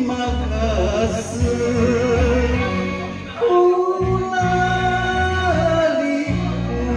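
Karaoke: a man singing an enka song into a microphone over the backing track.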